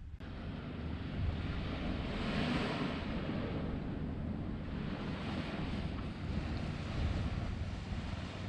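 Sea waves washing onto the beach, the rush swelling about two and a half seconds in and again around five seconds, with wind buffeting the microphone underneath.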